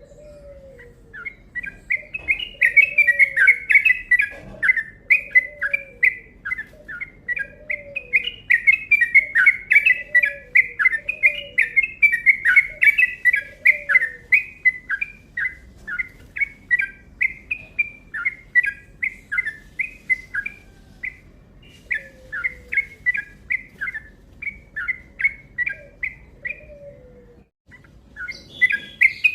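Yellow-vented bulbul (trucuk) singing a long, fast run of bubbly chirps that breaks off briefly near the end and then starts again. Beneath it a lower, falling call repeats about once a second.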